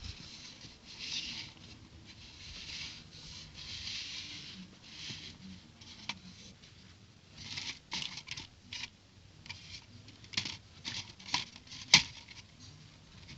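Small plastic building bricks being handled: soft rustling, then a string of sharp plastic clicks and taps, the loudest near the end.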